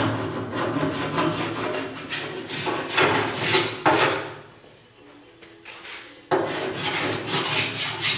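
Cheese-grater (Surform-type) body-filler rasp scraping over a coat of Bondo on a steel fender in quick repeated strokes, knocking down the high spots of the filler. About two-thirds of the way through the strokes pause for a second and a half, then resume.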